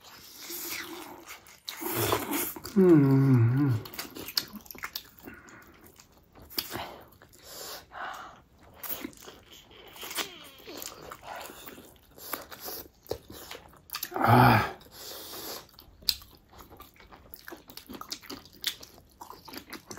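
Close-miked eating: noodles slurped and chewed and dumplings bitten, with many short wet mouth noises. A brief voiced murmur comes about three seconds in and again about fourteen seconds in.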